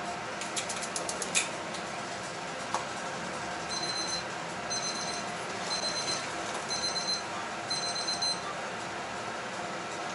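A frying pan of tomato sauce being tossed on a gas range's grate, a quick run of clicks ending in a louder knock about a second in. Then an electronic timer beeps in five short bursts of rapid high beeps, about one burst a second, over the steady simmer of the sauce.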